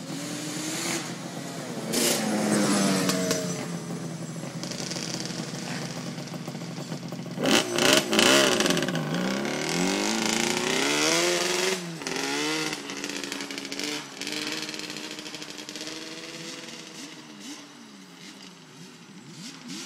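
Yamaha Banshee two-stroke sport ATV engines revving up and down as the quads race past on a dirt road. The loudest pass comes about eight seconds in, with a few sharp clatters, and then the engine fades into the distance.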